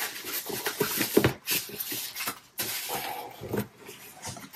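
Cardboard box and packaging rustling and scraping, with irregular knocks and crinkles, as a car stereo head unit is slid out of its box.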